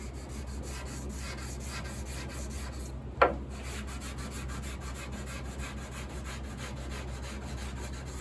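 220-grit sandpaper on a flat block rubbed hard back and forth over the shellac French-polish finish of a grand piano's wooden case, a steady rasping that grinds the finish down level and cuts off the high spots. A single sharp knock about three seconds in.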